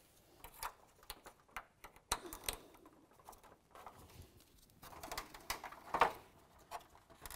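Scattered light plastic clicks and knocks as retaining clips are pressed onto a plastic pickup grille and the grille is handled, the loudest knock about six seconds in.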